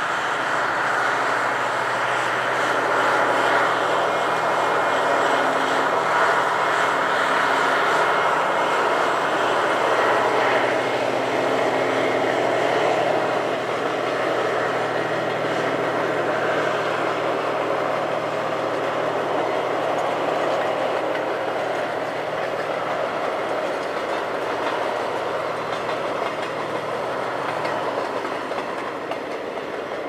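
Long diesel-hauled container freight train rolling past: the steady rumble of the wagons and a low diesel engine drone, loudest over the first half and then slowly fading.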